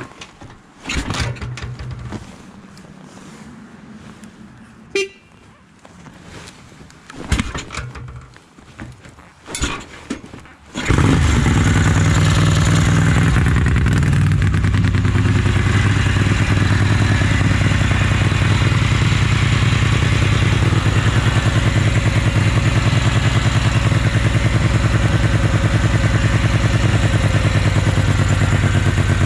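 A few handling clicks and knocks, then the 1974 Ducati 750GT's 90-degree V-twin, breathing through stainless Conti replica exhaust, fires up suddenly about eleven seconds in and runs at a steady idle with an even pulse.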